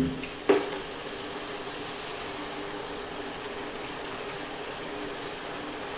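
Steady hiss from a pan of sautéed onion, carrot and beetroot as boiling water is ladled in with a steel ladle, with a light knock about half a second in.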